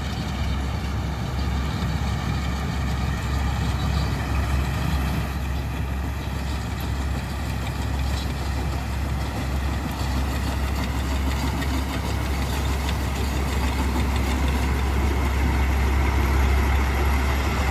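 Avatar Greenfield 6500 combine harvester running steadily: a deep engine hum under a steady high whine from its machinery, growing slightly louder near the end.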